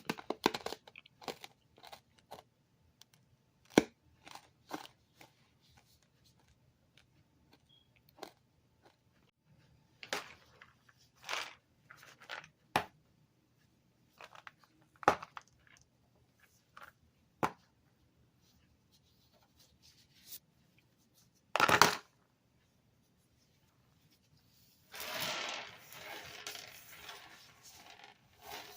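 Cough-drop packaging being torn and crinkled: irregular short tearing and crunching noises, one louder rip a little past the middle, then a few seconds of steady rustling near the end.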